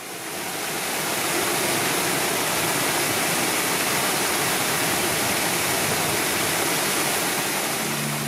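Fountain spout jetting water into a pond: a steady rushing splash that fades in over the first second or so.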